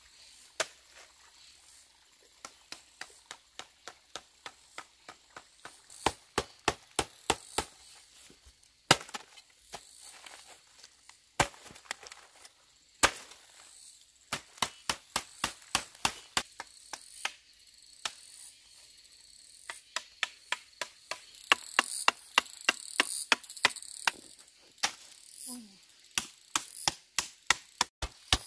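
Kitchen knife chopping food on a cutting board: runs of quick, sharp strokes, about four a second, broken by short pauses.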